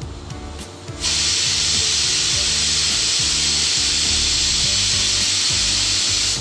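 Pressure cooker whistling: about a second in, the weight valve lifts and steam jets out in a loud, steady, high hiss for about five seconds, a sign that full pressure has been reached, before it cuts off.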